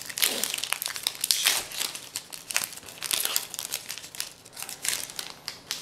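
Foil wrapper of a Magic: The Gathering booster pack crinkling and tearing as hands pull it open: a dense, irregular run of sharp crackles.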